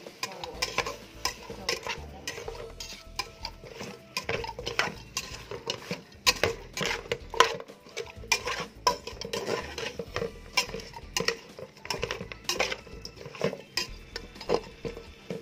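A cooking utensil knocking and scraping against a metal pot as raw pork bones are stirred and tossed, with quick, irregular clacks.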